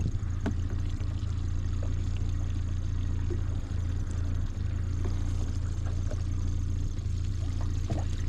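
Boat motor idling steadily with a low, even hum.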